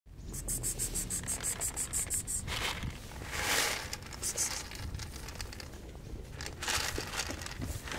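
A run of quick high rattles, about five a second, then rustling and a scatter of dry cat kibble poured from a plastic jug onto concrete near the end.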